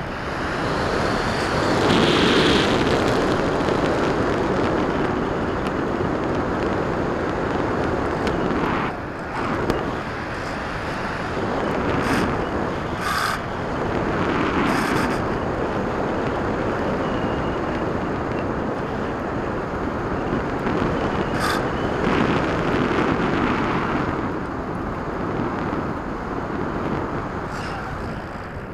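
Wind rushing over an FPV model plane's onboard camera in flight, a steady noise that swells and eases as the plane banks, with a few brief ticks.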